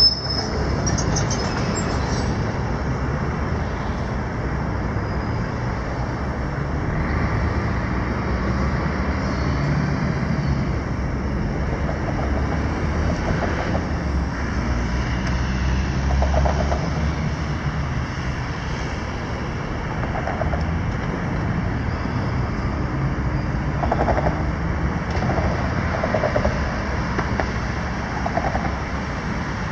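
New Holland 235 crawler excavator's diesel engine running steadily under load as it digs and slews, with short higher-pitched sounds from the working machine every few seconds.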